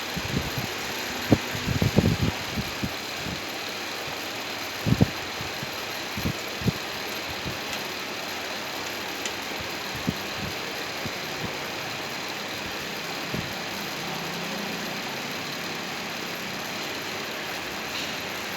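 Workshop machinery running steadily, with a few dull low knocks over it, clustered in the first several seconds.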